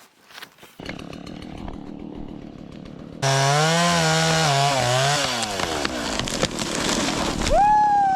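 Two-stroke chainsaw ticking over, then revved hard about three seconds in, its engine note wavering and then dropping as it slows. Near the end a high tone slides down in pitch.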